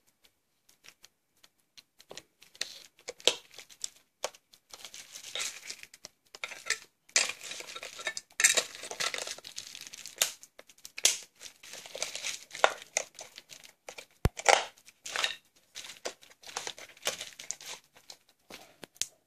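Handling noise: bubble wrap crinkling and a plastic multimeter case rattling in irregular spurts as a 9 V battery is fitted into its battery compartment. One sharp click comes about two-thirds of the way through.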